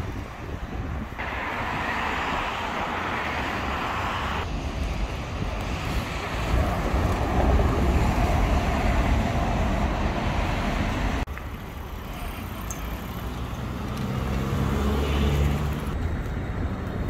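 City street traffic: a steady low rumble of passing road vehicles, louder in the middle as a city bus goes by. The sound changes abruptly several times.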